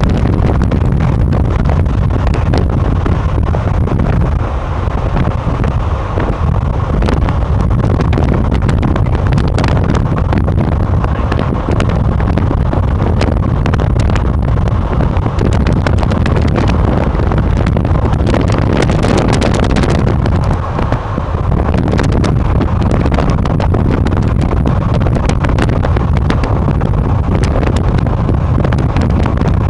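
Steady road and engine noise of a car driving along, a heavy low rumble with wind buffeting and crackling on the microphone throughout.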